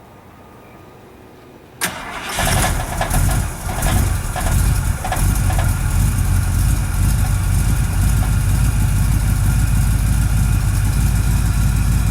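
Panel truck engine starting about two seconds in: it catches quickly, runs unevenly with a few revs for several seconds, then settles into a steady idle.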